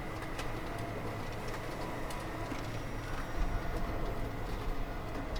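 Steady factory machinery noise: a low rumble and hiss with a faint steady high tone and scattered light clicks.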